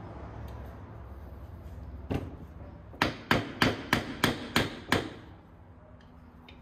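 A single knock, then seven quick sharp taps, about three or four a second, as a Holley 2210 carburetor is rapped with a hand tool during teardown to loosen parts stuck on with old, gummy deposits.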